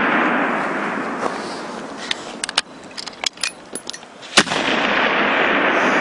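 Rifle shot on a target range: one sharp crack about four seconds in, followed by a long rolling echo. Before it, the rolling echo of an earlier shot dies away, then a run of light clicks.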